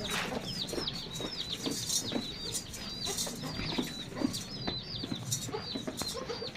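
Small birds chirping over and over, several short chirps a second, with scattered light knocks in between.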